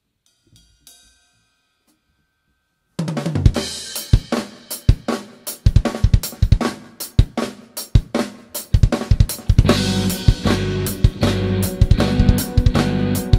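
A live rock band starts a new song. After about three seconds of near quiet, the drum kit comes in suddenly with kick, snare and cymbal hits over held chords. About ten seconds in, the band fills out into a denser, louder instrumental intro.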